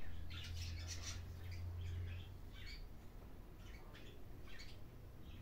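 Small birds chirping over and over in short high calls. A low steady hum runs under them and stops about two seconds in.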